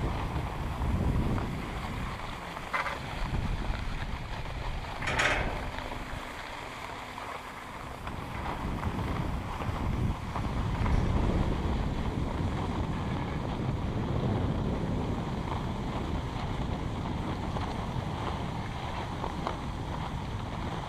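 Wind buffeting the camera microphone, with skis sliding over packed snow, while riding a button lift uphill. About five seconds in, a brief rattle as the rider passes under a lift tower and the cable runs over its pulleys.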